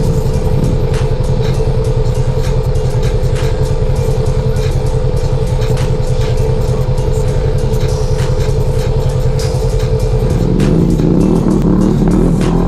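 Polaris RZR 4 1000 side-by-side's parallel-twin engine idling steadily under the hood. The engine sound swells and rises about ten seconds in.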